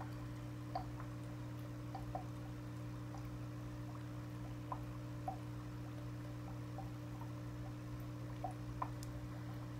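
Aquarium water sounds: irregular small dripping plinks, about one every second or so, over a steady low hum.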